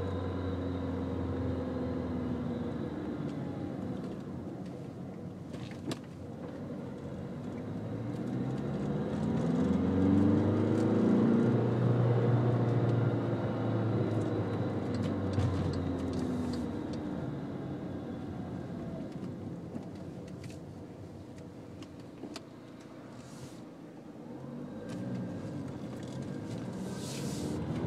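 2012 Volkswagen Jetta TDI's 2.0-litre four-cylinder turbodiesel running and revving, its pitch climbing to a peak about ten to fourteen seconds in, dropping back, then rising again near the end. It is recorded for the rattling, hissing noise the owner hears from about 1,000 rpm up, which the dealer called normal.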